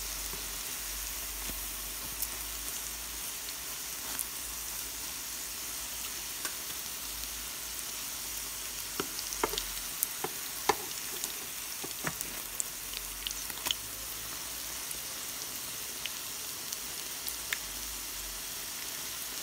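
Courgette and carrot fritters frying in shallow oil in a pan: a steady sizzling hiss with scattered sharp pops and clicks, which come thickest a little past the middle.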